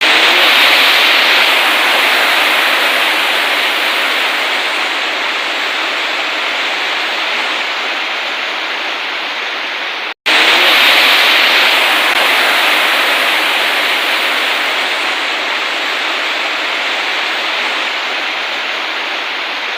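Heavy rain pouring down, a loud steady hiss. It cuts out for an instant about halfway through, then carries on at the same strength.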